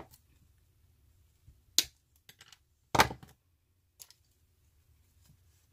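A few brief handling noises from artificial flower stems being picked up and moved: a sharp snap a little under two seconds in, a louder rustling knock at about three seconds, and a light click a second later.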